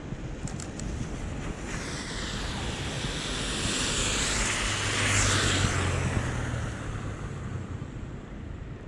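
A vehicle passing on a wet street: the tyre hiss swells to a peak about five seconds in and fades away, with a low hum from the vehicle as it goes by.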